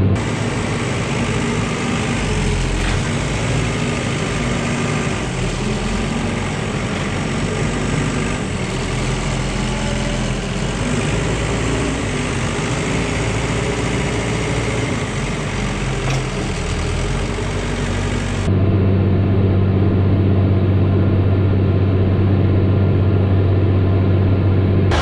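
Tractor engine running steadily. About three-quarters of the way through the sound cuts abruptly to a louder, deeper, steady engine hum.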